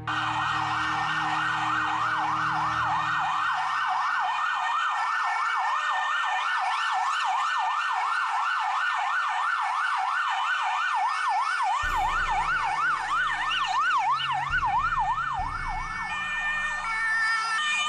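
Ambulance siren on a fast yelp, sweeping up and down about four times a second, as the ambulance approaches. About two-thirds of the way through the vehicle's engine becomes audible under it, and near the end the siren changes to a stepped pattern of tones.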